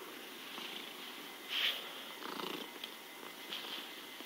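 House cat purring steadily, the cat high on catnip, with a brief louder noise about one and a half seconds in.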